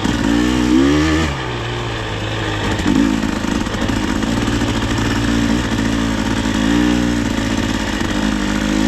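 Dirt bike engine running as it is ridden along a trail, its pitch rising and falling with the throttle, with several short revs up, about a second in, around three seconds and near seven seconds.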